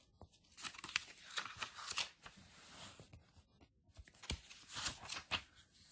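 Glossy catalogue pages rustling and crinkling as they are turned by hand, in two bouts with light flaps and taps of the paper, the second starting about four seconds in.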